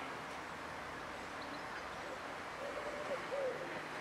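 A bird cooing, a few short low calls in a row about three seconds in, over a steady outdoor hiss.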